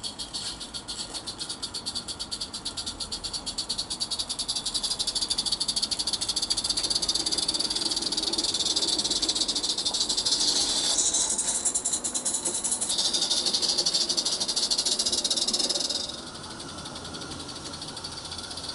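Live steam garden-railway locomotive (a Roundhouse Lady Anne) chuffing with a fast, hissy exhaust beat, growing louder as the train draws near and passes. About sixteen seconds in the sound drops off suddenly to a fainter chuffing.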